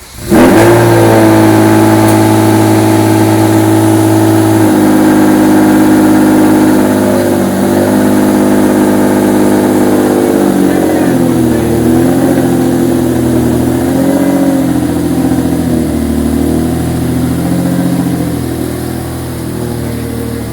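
Lamborghini Diablo V12 starting: it catches at once and flares, then holds a steady, higher idle for about four seconds before dropping to a lower note. After that the idle wavers up and down before settling, growing quieter near the end.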